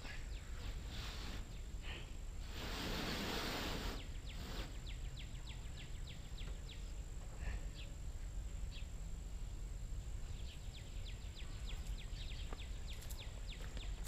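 Outdoor ambience: a steady low rumble with a bird giving runs of rapid, high chirps, and a brief rush of noise about three seconds in.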